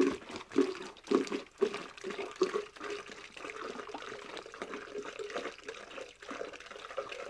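Water glugging out of an upturned bottle into a dish tub, in gulps about two or three a second at first, then running as a steadier stream.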